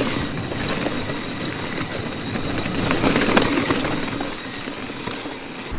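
Mountain bike on a forest trail, its conventional pawl-type rear freewheel hub ratcheting in a steady buzz while coasting, over the rumble of the tyres on the dirt.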